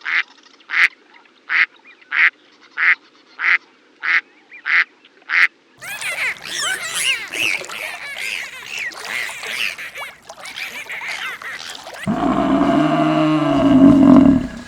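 Waterfowl calling: nine short, evenly spaced quacks at about three every two seconds, then a flock honking and quacking over one another. About twelve seconds in, a louder, deeper drawn-out animal call begins.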